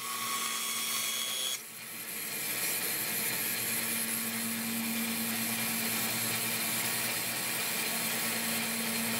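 Electric bandsaw running: its blade cutting a curve through plywood for about the first second and a half, then running free with a steady hum. The sound cuts off abruptly at the end.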